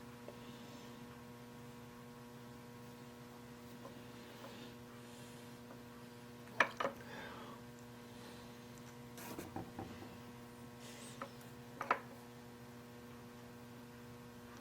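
Faint steady electrical mains hum, with a few short light clicks and knocks: a pair about two-thirds of the way in, a cluster a little later, and another pair near the end.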